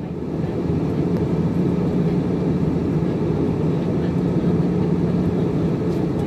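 Steady drone of a jet airliner cabin in cruise: engine and airflow noise with a low hum underneath, heard from inside the cabin.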